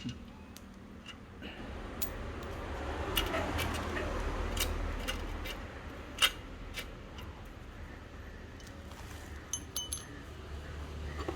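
Scattered metallic clicks and clinks of a spanner and tools working on the nuts of an old rusted bicycle, with a few short metallic rings near the end. A steady low hum runs underneath.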